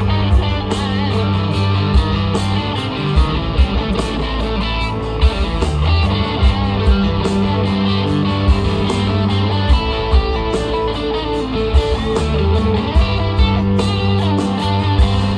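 Southern rock band playing live: electric guitars over bass and a steady drum beat, in an instrumental passage with no singing.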